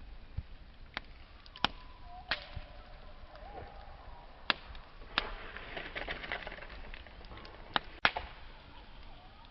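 Wood campfire crackling, with sharp irregular pops over a low hiss and a denser run of crackles a little past the middle. A faint wavering whistle sounds between the pops about two seconds in.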